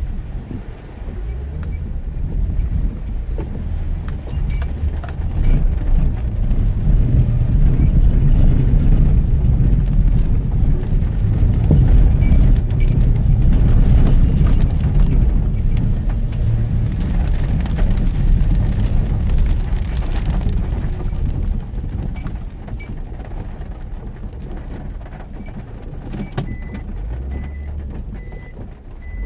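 Mitsubishi Pajero Mini driving on a rough, rain-soaked forest road: a heavy low rumble of engine and tyres that swells and then eases, with light rattles now and then. Near the end a short high beep starts repeating about every three-quarters of a second.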